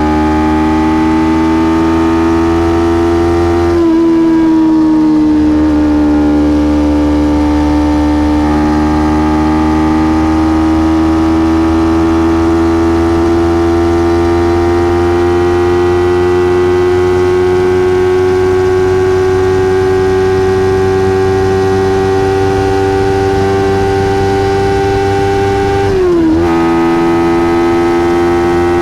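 Kawasaki Ninja 300's parallel-twin engine and stock exhaust running under way at a steady, slowly climbing pitch. The pitch dips briefly about four seconds in and again near the end as gears change.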